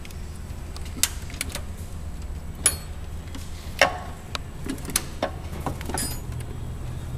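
Scattered, irregular clicks and knocks of hands handling a car's brake master cylinder and its plastic fluid reservoir, over a steady low hum.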